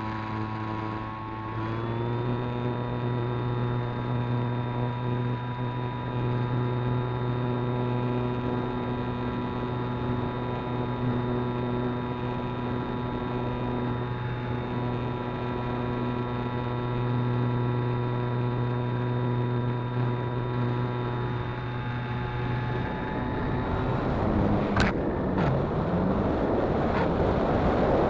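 RC plane's motor and propeller running steadily as heard from the onboard camera, the pitch stepping up slightly about two seconds in. About 23 seconds in the motor tone stops and a rising rush of wind takes over as the plane goes into an unrecoverable nose dive, with a sharp crack shortly after.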